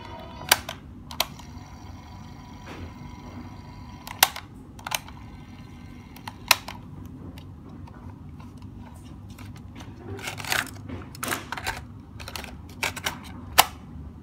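Piano-key transport buttons of an Elpa CTR-300 portable cassette recorder clicking as they are pressed and released: about a dozen sharp, spaced clicks, closer together near the end, over a faint low hum.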